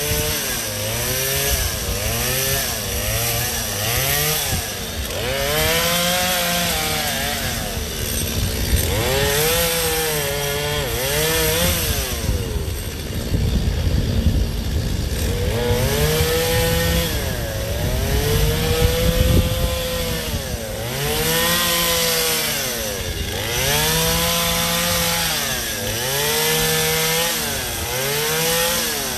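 Gas chainsaw cutting ice, its two-stroke engine revving up and dropping back over and over, roughly once every one to two seconds. It eases off briefly about halfway through.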